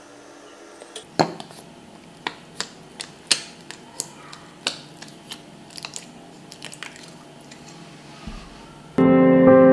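Dish-soap-and-salt slime being pressed and pulled out of a small clear plastic cup by hand: a string of sharp, irregular clicks and pops. Music starts suddenly near the end.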